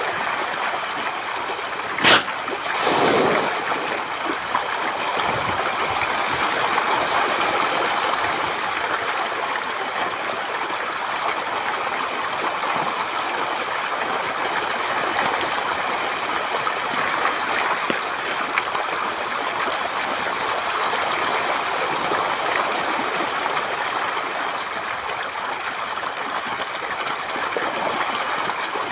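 Many fish thrashing and splashing together at the surface of shallow, muddy water, a dense continuous rush of splashing. A sharp click comes about two seconds in, followed briefly by a louder splash.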